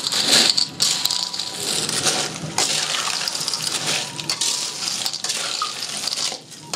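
Tutut snails in their shells sizzling in a stainless steel wok while being stirred with a metal spatula, the shells clicking and scraping against the pan. It dips briefly near the end, then carries on.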